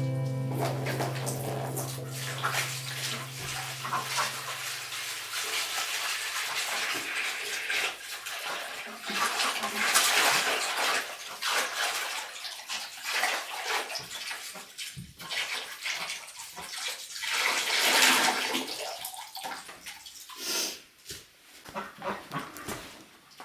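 Running water splashing, swelling and easing off several times, as guitar music fades out in the first few seconds.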